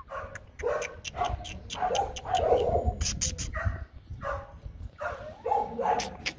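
H'mong bobtail puppies giving short, repeated yips and whines, with scattered sharp clicks between the cries.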